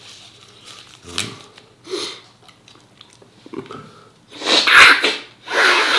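A man sneezing loudly about four and a half seconds in, followed at once by a second noisy blast of breath. Before that come a few short, quieter mouth sounds.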